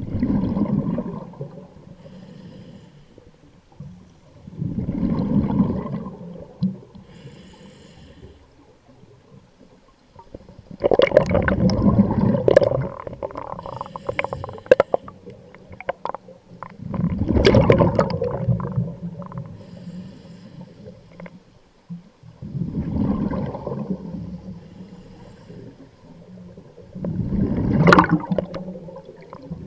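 Scuba diver's breathing through a regulator heard underwater: regular breaths with bursts of bubbling exhaust, about every five to six seconds, some longer and crackling.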